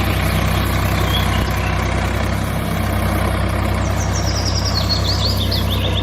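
A motor running steadily with a low, even drone. A few short high chirps come in near the end.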